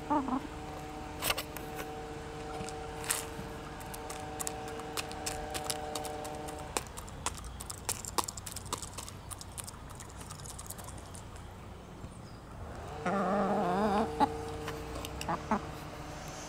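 A chicken sneezing: short, sharp snaps every few seconds over a steady background hum. About 13 seconds in there is a louder wavering call lasting about a second.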